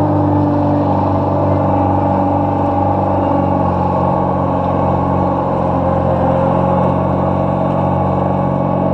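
Zamboni ice resurfacer's engine running steadily close by, its note shifting slightly about three and a half seconds in.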